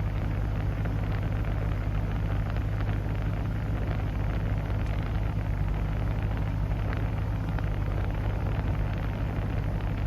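The 2005 Ford GT's supercharged 5.4-litre V8 idling steadily, heard from inside the cabin, under the steady rush of the air-conditioning blower.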